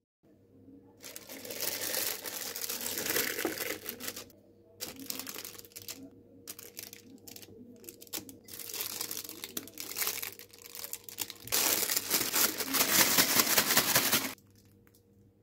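Plastic piping bag crinkling and rustling as frosting is scraped into it with a silicone spatula, in several bursts, the loudest near the end.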